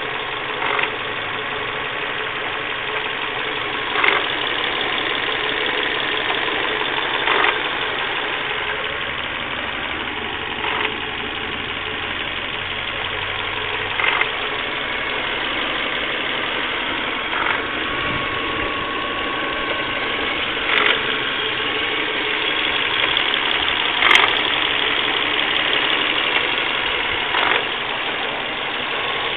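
Warmed-up Volvo V40 1.6 engine running steadily, making an unusual noise: a short, louder sound recurs about every three and a third seconds over the even running.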